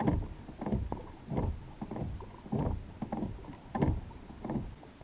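Small dinghy being worked along by hand from the bow: a rhythmic run of about eight hollow knocks, each one falling in pitch, roughly two-thirds of a second apart.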